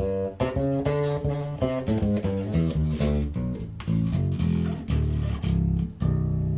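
Homemade five-string electric bass played through a Behringer bass amp head on its bridge pickup alone: a quick run of plucked notes at changing pitches, ending on a held low note. The bridge pickup gives it a brighter tone.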